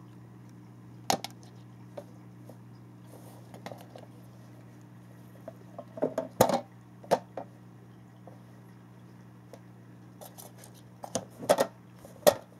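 Small plastic drawer unit knocking and clattering as a cat noses and paws at it, trying to get the drawer open without pulling it: scattered sharp knocks, with a busy cluster about six seconds in and another near the end.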